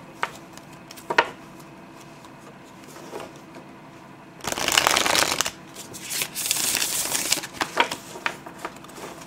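ETA Tarot deck being riffle-shuffled by hand, a soft shuffle of bendy cardstock. A couple of sharp taps come as the deck is squared, then about halfway through a quick riffle of cards, followed by a longer cascade, and a few more taps near the end.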